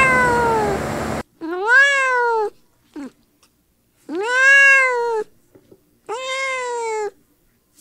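A cat's meow over background noise in the first second, then three long, high-pitched meows from a very young kitten, each rising and then falling in pitch, about two seconds apart.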